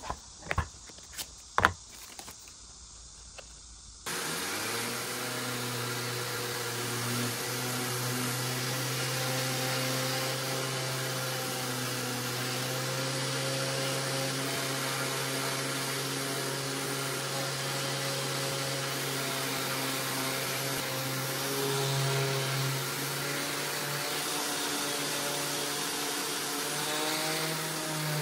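A few sharp clicks and taps of handling, then about four seconds in a Bosch random orbital sander starts up and runs steadily on old wooden boards, a whirring hum whose pitch wavers slightly near the end.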